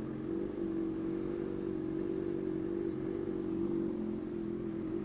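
Honda CBR600RR's inline-four engine running at steady low revs, an even hum with no rise or fall in pitch, as the motorcycle creeps through stop-and-go traffic.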